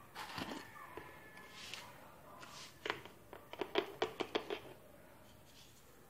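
Light clicks and taps from a small plastic salt container being handled over a steel bowl of fish pieces, with a quick run of sharp clicks about three and a half seconds in.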